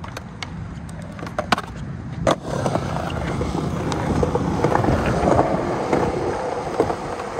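Skateboard wheels rolling over smooth concrete as the skater pushes off, a steady rumble that grows louder from about two seconds in. A few sharp clacks stand out over the rolling, the loudest about two seconds in.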